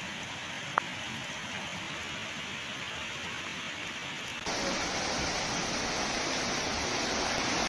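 Steady hiss of noise that sounds like rain or flowing water, with one short click about a second in. About four and a half seconds in, the hiss steps up and becomes louder and brighter.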